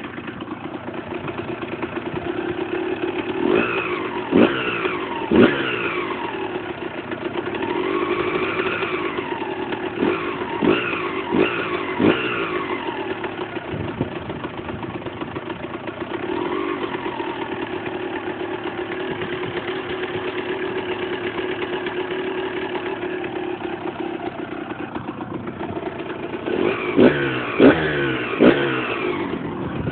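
Husqvarna SM 125 single-cylinder motorcycle engine idling, with short throttle blips: three near the start, four more around the middle and a quick cluster near the end. The engine is making an abnormal noise that the owner puts down to a loose nut on the crankshaft.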